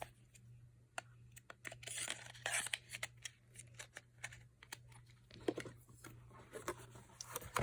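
Cosmetics and packaging handled by hand: scattered light clicks and taps, with short bursts of rustling or crinkling about two to three seconds in and again a little past the middle.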